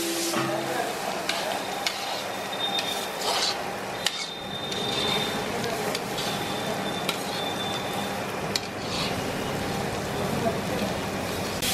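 Sliced onions and green chillies sizzling in oil in a large black kadai, stirred with a perforated steel ladle that scrapes and clicks against the pan every second or two.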